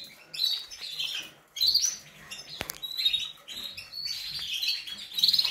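Cage birds chirping: short high chirps repeated every half second or so, with one sharp click about halfway through.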